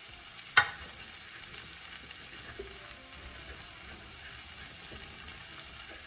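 Wooden spoon stirring cubed potatoes and onions coated in masala powder in a nonstick pan over a low flame, with soft scraping over a faint, steady sizzle. There is one sharp knock about half a second in.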